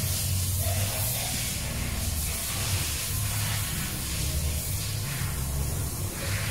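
Steady hiss of compressed air from a cylinder leak-down tester, over a low, uneven rumble.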